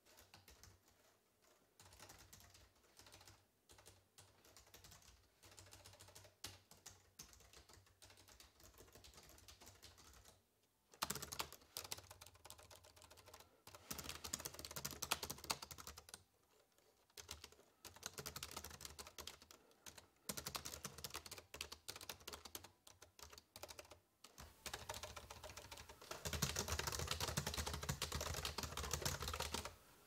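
Typing on the keyboard of an AlphaSmart Neo2 portable word processor: quick runs of key clicks broken by brief pauses. The typing is softer for the first ten seconds or so, then louder, and loudest near the end.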